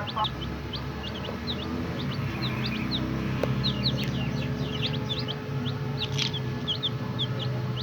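A group of young chicks peeping continuously: many short, high-pitched cheeps, several a second, over a low steady hum.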